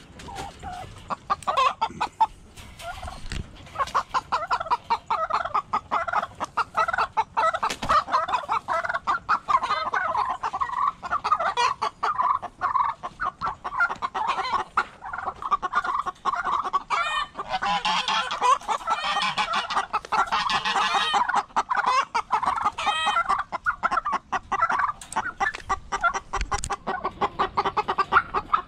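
Chickens clucking continuously, with a turkey gobbling among them.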